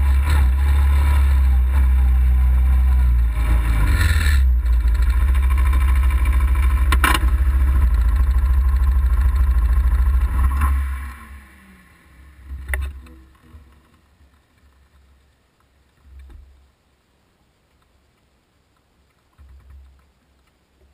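Off-road vehicle's engine running with a deep, steady rumble, then switched off about eleven seconds in and winding down. After that only a few faint small knocks.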